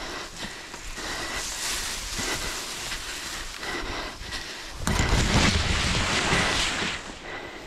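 A person walking through tall grass and undergrowth, with footsteps and grass rustling and brushing against the body and camera. The rustle gets louder for about two seconds, starting near the five-second mark.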